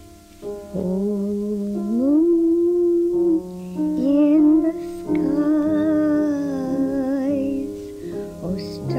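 A woman singing a gentle melody over piano accompaniment, her voice sliding up between notes and held with vibrato in the second half.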